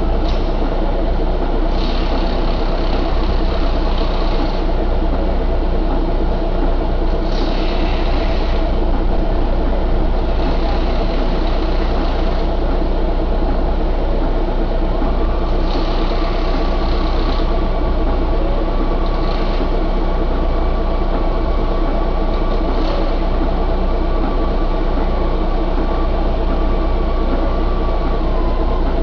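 Isuzu 6HK1 inline-six turbo-diesel engine running steadily, with short bursts of hiss every few seconds. A thin steady whine comes in about halfway through.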